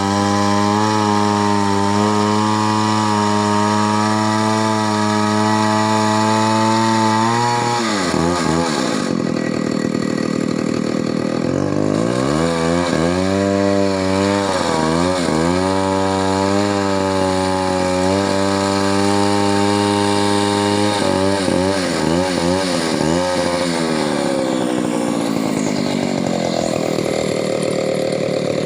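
Two-stroke chainsaw running at high speed, cutting wood. Its pitch drops under load and climbs back several times.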